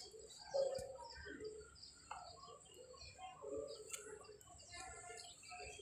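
Several birds chirping and calling in short, scattered notes, with a few faint clicks.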